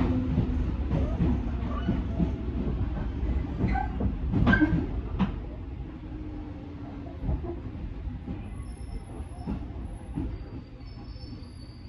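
Onboard running sound of a JR 205 series 3100 subseries electric train slowing down. The wheel rumble and rail-joint clacks fade as speed drops, and a motor whine falls in pitch. A faint high brake squeal comes in during the second half.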